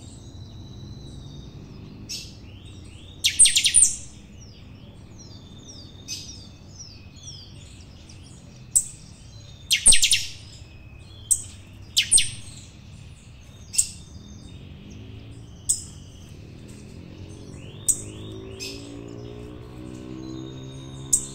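Caged saffron finch (canário-da-terra) singing a 'chanchão' song: loud, sharp high chirps about every one to two seconds, with softer twittering between them. A steady low hum runs underneath.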